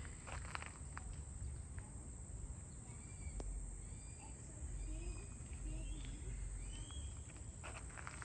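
Outdoor garden ambience: several short bird chirps through the middle, with footsteps on a path near the start and again near the end, over a low rumble.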